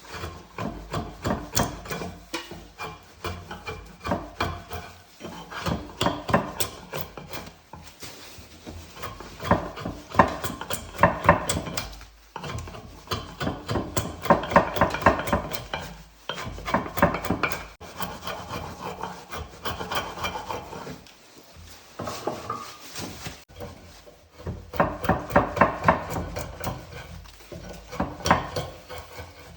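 A hand tool rasping and scraping at wood in quick repeated strokes, coming in bursts of a few seconds with short pauses between them.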